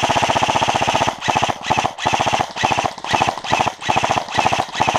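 Airsoft rifle firing on full auto: a rapid stream of shots for about the first second, then a string of short bursts about half a second apart.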